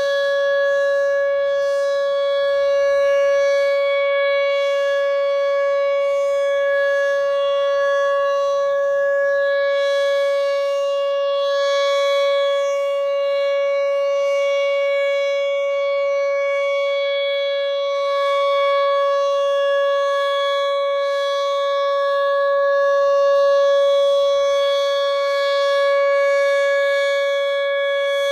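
Whelen 2806 electronic outdoor warning siren holding its steady alert tone at about 560 Hz during a siren-system test. The loudness swells and fades gently.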